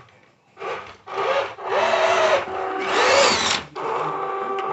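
Electric drive motors and plastic tracks of an SG1203 (Ripsaw-style) RC tank whining in several short bursts as it is driven and turned, the whine rising and falling in pitch with the throttle.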